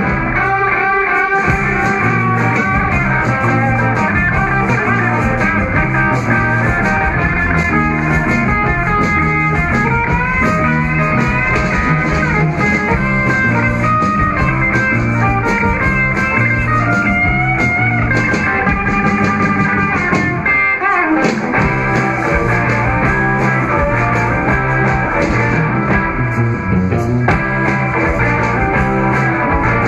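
A live rock band playing, with electric guitar lead over bass and drums.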